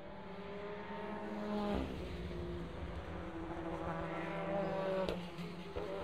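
WTCC touring cars with 1.6-litre turbocharged four-cylinder engines passing at speed one after another through a corner. Each engine note builds and then breaks off sharply as the car goes by, about two seconds in and again about five seconds in.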